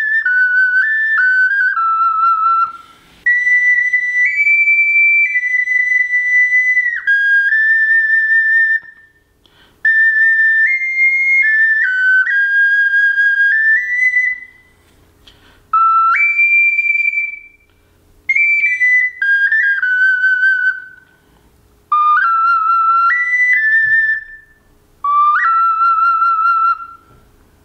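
A high-pitched Songbird ocarina played solo: an improvised melody in short phrases of stepwise and leaping notes, with brief pauses for breath between them and a light vibrato on some held notes.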